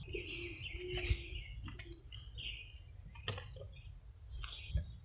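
Birds chirping in the background, with a few faint clicks.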